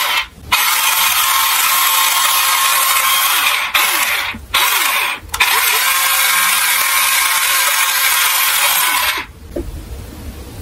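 Diecast toy cars rolling down a plastic slope track: a steady rattling clatter with a few brief breaks. It stops about nine seconds in.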